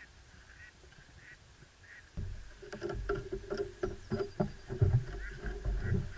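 Footsteps of a person and a small dog on a wooden boardwalk, starting about two seconds in: hollow thuds and knocks on the planks, loudest as the boot passes close near the end.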